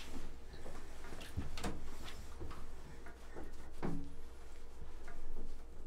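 Light knocks, clicks and rustles as a wet Australian Shepherd is rubbed dry with a towel in a bathtub. There is a brief short squeak about four seconds in.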